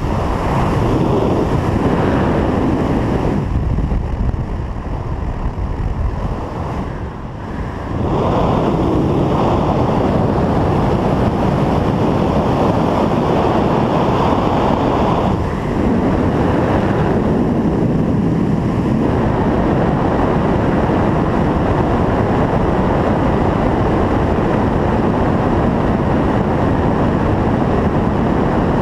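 Wind rushing over a skydiver's camera microphone: a loud, steady rush of air noise that eases off for a few seconds between about three and eight seconds in, then holds steady again.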